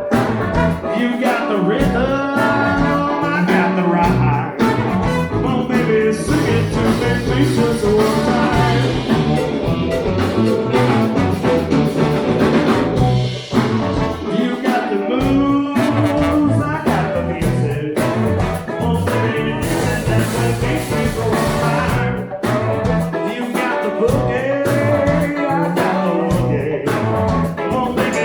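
A band playing a song live, with a singing voice over guitar and drums.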